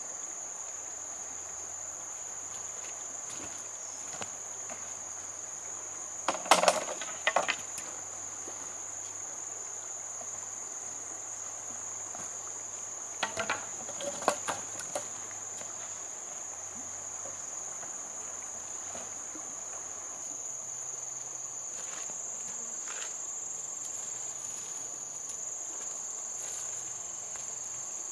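Steady, high-pitched insect chorus. Two short bursts of sharp clattering knocks stand out above it, one about six seconds in and another around thirteen to fifteen seconds in; these knocks are the loudest sounds.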